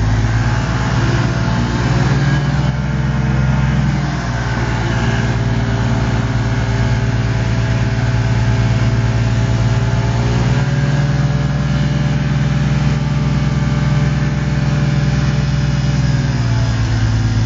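Light aircraft's propeller engine running on the ground before take-off, heard loudly from inside the cockpit. The engine note rises about ten seconds in and settles back near the end.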